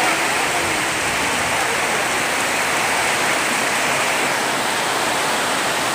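Heavy monsoon rain pouring down, a dense, steady hiss that does not let up.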